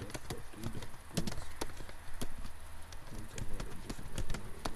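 Computer keyboard typing: irregular keystrokes, a few a second, as a command line is entered.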